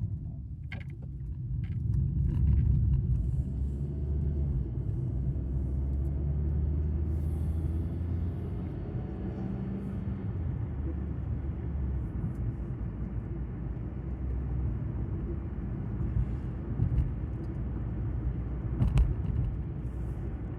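Engine and road noise of a car heard from inside its cabin while driving: a steady low rumble that swells about two seconds in, with a couple of short knocks near the end.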